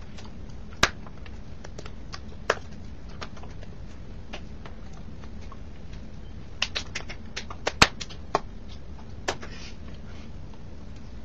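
Scattered sharp clicks and light knocks over a steady low hum: one about a second in, another at two and a half seconds, then a quick cluster around seven to eight seconds, the loudest near eight seconds.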